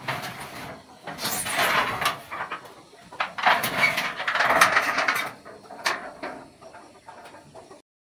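Corrugated metal roofing sheet scraping and rattling as it is dragged up off a stack, in a burst about a second in and a longer one from about three to five seconds, followed by a few light knocks.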